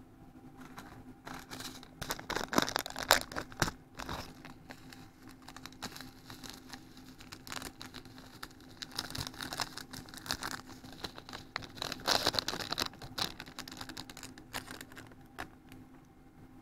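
A small plastic sachet of furikake crinkling as it is torn open and handled, in two clusters of crackling: one about two seconds in and a longer one from about nine to thirteen seconds. A faint steady hum runs underneath.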